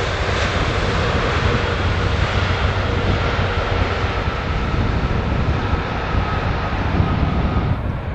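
Jet airliner engines running at high power: a steady rushing noise with a thin whine. The whine and the upper hiss fade near the end.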